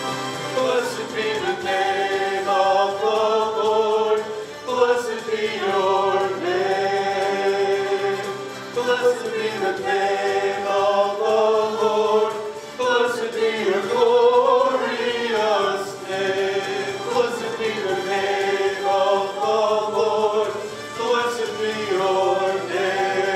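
A small group of men and women singing a worship song together into microphones.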